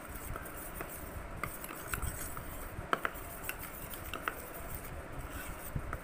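A spoon stirring a thick paste in a small bowl, with soft scraping and irregular light clinks of the spoon against the bowl, the sharpest about three seconds in.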